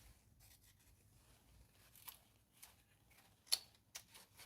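A few faint clicks and light rustling from hands refitting parts in a car's engine bay, the loudest click about three and a half seconds in.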